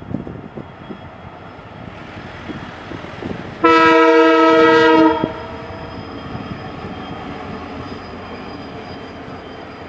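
WDP4 diesel locomotive's air horn sounding one long steady blast of about a second and a half, a chord of several tones, over the rumble and clatter of the running train.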